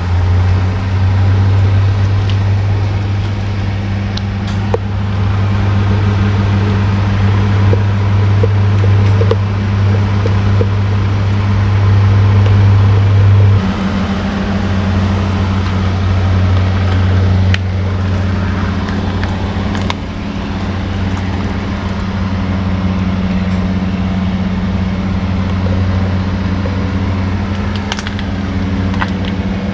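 Steady low mechanical hum of a running motor or engine, changing slightly about fourteen seconds in, with a few faint ticks.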